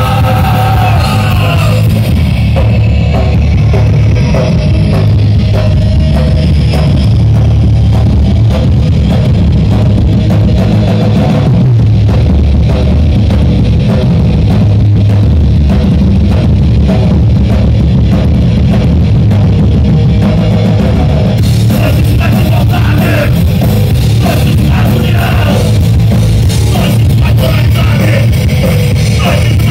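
Live heavy rock band playing loud through a PA: distorted electric guitars, bass guitar and a pounding drum kit, with shouted vocals near the start and again in the last third.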